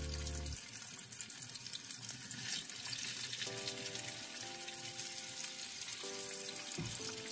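Breaded grit squares frying in a skillet of hot oil, a steady sizzle, under soft background music whose notes drop out about half a second in and return a few seconds later.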